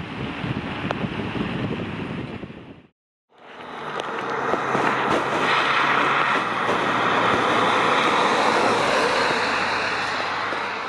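Volvo XC40 T5 driving on a wet road. A low engine and exhaust rumble fades out about three seconds in. After a brief gap, the hiss of its tyres on wet tarmac rises as it comes closer and passes, over a low steady engine hum, and fades near the end.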